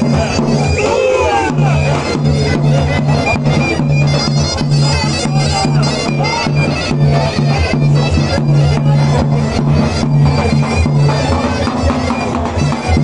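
Davul and zurna playing a fast horon dance tune: the zurna's loud, reedy melody over steady davul beats.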